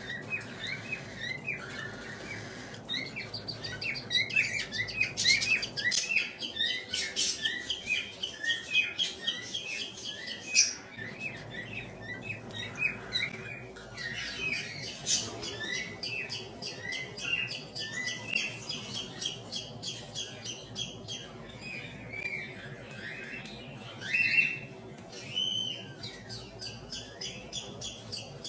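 Cockatiel chicks giving rapid, repeated begging chirps while being fed by a parent, with a few louder, longer calls near the end.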